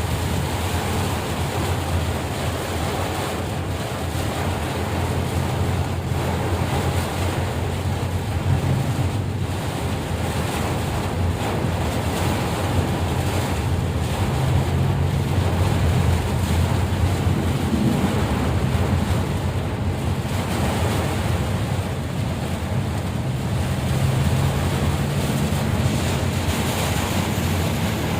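Steady rushing noise of heavy rain with wind buffeting the microphone, over a continuous low rumble.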